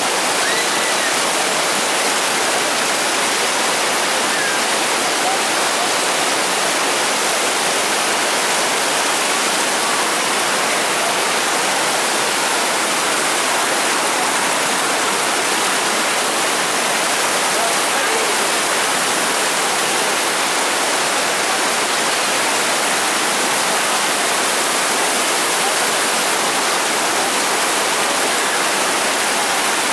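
Fast mountain stream cascading white over boulders: a loud, steady rush of water.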